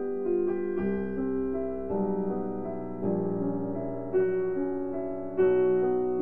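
Slow piano music: sustained chords, a new one struck every second or so.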